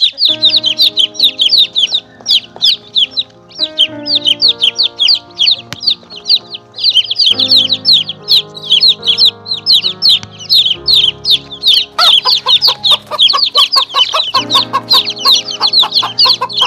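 Many domestic chicks peeping rapidly and continuously, each peep a short falling note, over background music with held notes.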